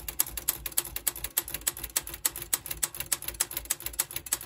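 Royal FP manual typewriter being typed on in a fast, even run, about seven key strikes a second, each typebar clacking against the platen as the carriage steps along. The margin release key has freed the line lock, so typing carries on past the right margin toward the end of the carriage.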